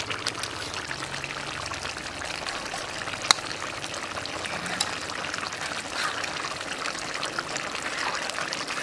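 Curry bubbling at a steady boil in an open kadai, a continuous hissing bubbling sound. Two sharp clicks stand out, one about a third of the way in and another shortly after.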